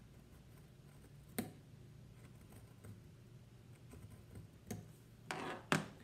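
X-Acto craft knife scoring across a wooden tongue depressor: scattered faint clicks and scrapes, then near the end a louder scrape followed by a sharp click.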